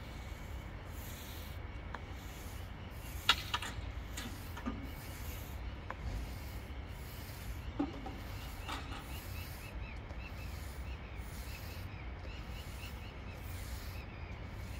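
A paint roller on an extension pole rolling sealer across a smooth concrete slab, a rubbing swish with each stroke at a steady rhythm. A sharp knock about three seconds in stands out above it, with a few fainter knocks later.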